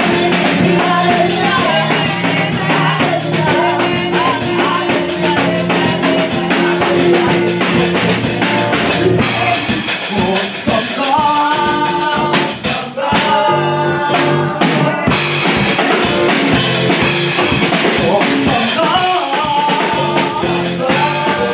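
Live gospel worship music: singing voices over electronic keyboard chords, with a drum beat and tambourine.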